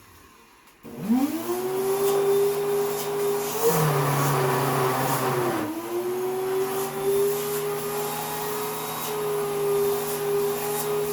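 Kenmore canister vacuum's motor winding down, then switched on again about a second in and whining up to a steady pitch. Midway the pitch sags and a rush of air noise rises for about two seconds before the motor settles back. The motor is burning up as it runs.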